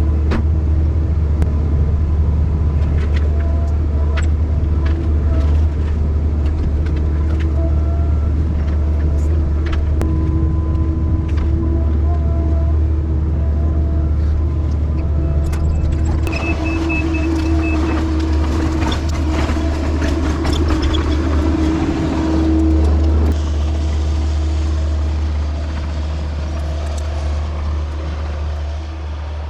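A tracked excavator of about 34,000 lb working, its diesel engine running steadily with scattered knocks and clunks. About halfway through comes a busier stretch of clatter and rushing noise, with a brief high whine at its start, lasting several seconds.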